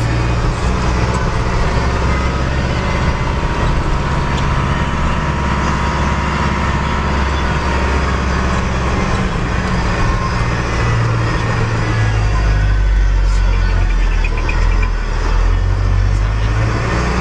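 Steady low drone of a car's engine and tyre noise, heard from inside the moving car.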